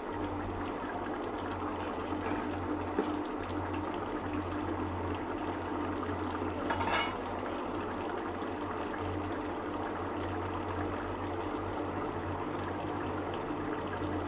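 Egg curry simmering in a pot on the stove: a steady bubbling over a low hum, with one short sharp sound about seven seconds in.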